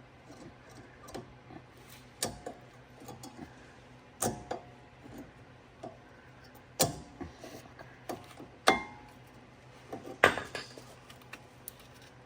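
Metal tools and parts clinking and knocking during hand work on brake hardware: about five separate sharp taps, a second or two apart, one of them with a brief metallic ring.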